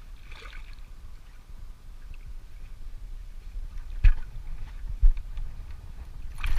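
Low rumble of wind and water around a small boat, with two dull thumps about four and five seconds in and a short rustle near the end.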